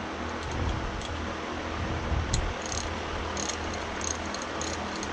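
Faint, irregular light clicking of a vintage RWYa ratchet's pawl over its gear as it is worked to break it in after fresh lubrication, in the second half, over a steady low room hum.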